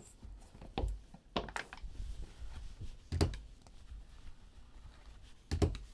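A few light clicks and knocks from trading card packs and their box being handled and cut open on a table, two of them close together near the end.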